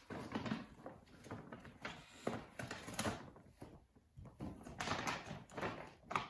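A paper gift bag being handled and folded, crinkling and rustling in irregular bursts, with a few light knocks as a cardboard box is lifted out and set down.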